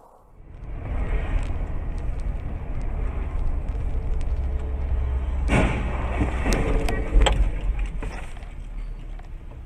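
Car collision picked up by a dashcam inside a moving car: steady road and engine rumble, then a sudden crash about five and a half seconds in. A quick run of further bangs and crunches follows, loudest a little after seven seconds.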